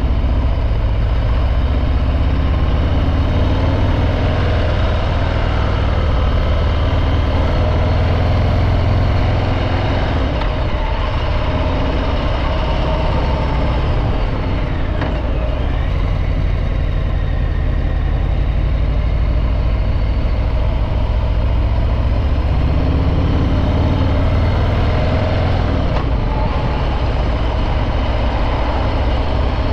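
Harley-Davidson Breakout 114's Milwaukee-Eight 114 V-twin running under way through its stock exhaust, a deep steady engine note whose pitch shifts a few times, about ten to sixteen seconds in and again near the end.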